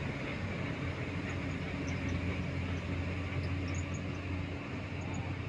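Running engine and road noise of a moving vehicle: a steady low drone with no change in pace.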